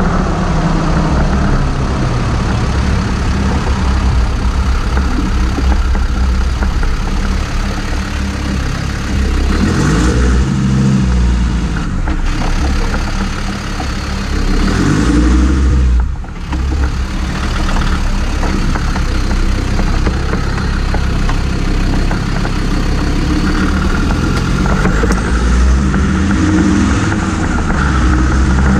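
Land Rover Discovery 2 driving on the road, heard from under the rear axle: engine running with its note climbing and falling several times, mixed with steady road and tyre noise, and a brief dip about sixteen seconds in.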